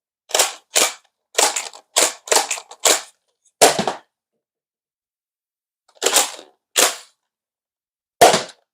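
Modded Nerf Rival Takedown pump-action blaster being primed and fired repeatedly. It gives a series of about ten sharp plastic clacks and spring snaps, packed close together for the first few seconds, then three more spaced a second or two apart.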